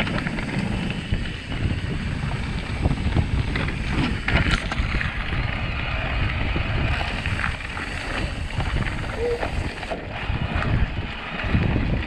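Electric mountain bike riding over rough trail: wind buffeting the microphone and a steady tyre rumble, with frequent knocks and rattles as the bike goes over rocks and bumps.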